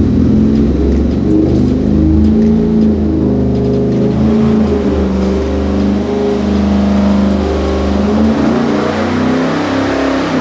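Ford 7.3L Godzilla pushrod V8, running on headers, making a wide-open-throttle pull under load on an engine dyno. The note is loud and steady, turning harsher as the revs climb through the sweep toward the top of the pull.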